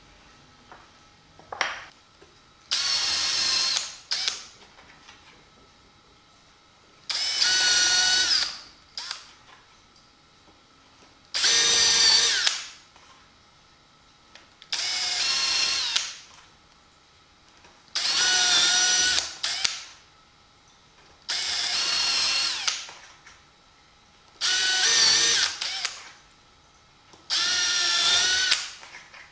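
Cordless drill-driver boring holes into pine with a twist bit, in eight short bursts of a little over a second each, spaced a few seconds apart. The motor whine with the bit cutting wood starts and stops with each hole.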